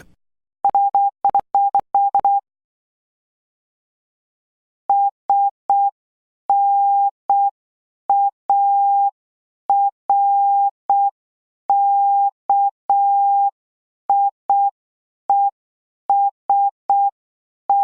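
Morse code practice tone: a single steady pitch keyed on and off in dots and dashes. A quick run of characters comes about a second in, then after a pause of a few seconds a slower, more widely spaced string of dots and dashes.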